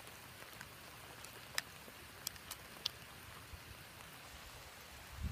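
Heavy rain falling steadily, an even hiss with scattered sharp drips ticking, a few louder ones about one and a half to three seconds in. A few low thumps near the end.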